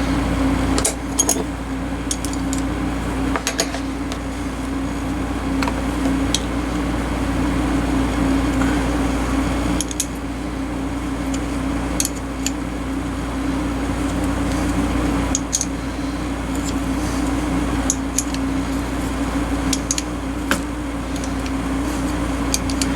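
A small electric tool running with a steady hum, with scattered sharp metallic clicks as the pliers are handled.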